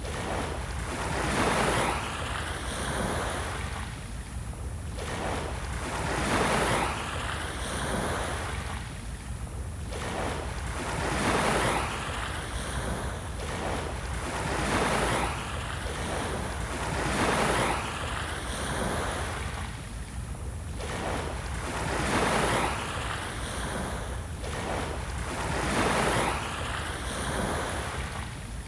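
Small waves washing onto a shore, each swelling and falling away every two to three seconds, over a steady low rumble.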